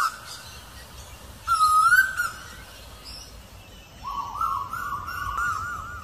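Asian koel calling: a short wavering call about a second and a half in, then a run of quick rising-and-falling notes from about four seconds in.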